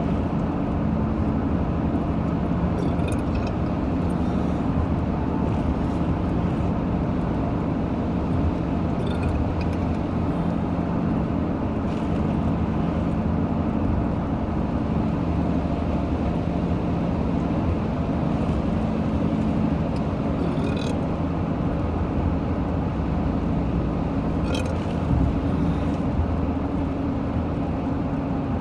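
Steady road and engine noise inside a moving car, loud throughout. A few short, sharp hiccups break through it at irregular gaps.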